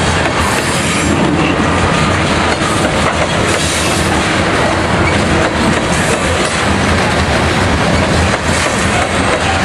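Coal train's cars rolling past: a steady, loud rush of steel wheels on the rails with occasional clicks.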